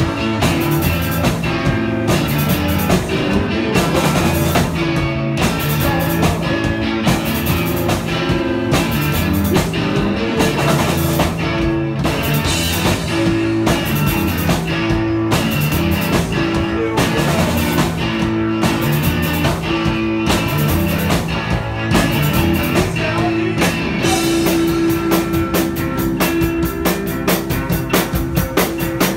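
Live rock band playing electric guitars over a drum kit with a steady beat; in the last few seconds the drum hits come closer together.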